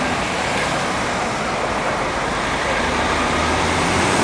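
Steady outdoor background noise: an even hiss with an unsteady low rumble, getting slightly louder near the end.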